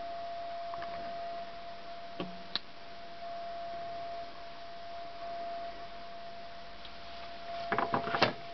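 Light clicks and taps of hand tools and equipment being handled, two sharp ones about two seconds in and a quick cluster near the end, over a steady faint high whine.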